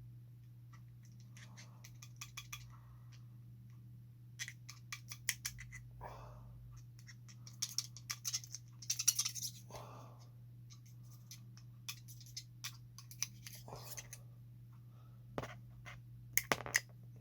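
Small parts of a RockShox Recon fork's lockout damper being handled and worked apart: scattered sharp clicks and light ticks, with a few short scrapes, over a steady low hum.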